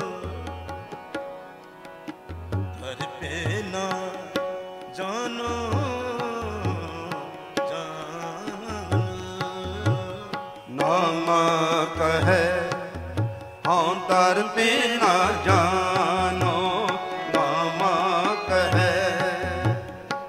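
Live Gurbani kirtan music: tabla drumming, its low strokes repeating steadily, under a wavering melody and held notes. The music grows louder about halfway through.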